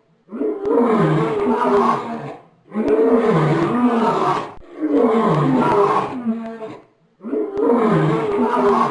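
Bear growling sound effect: the same deep, roaring growl of about two seconds, repeated four times with short silent breaks between.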